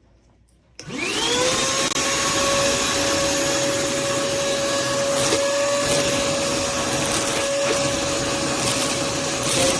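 Armor All 1.5-gallon Vac-Mate wet/dry vacuum switched on about a second in: the motor spins up with a rising whine, then settles into a steady, even hum over loud rushing air.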